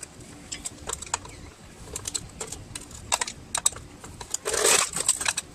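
Scattered light clicks and taps of hand tools against the metal and plastic parts of a garage door opener being taken apart, with a short, louder rattling scrape near the end.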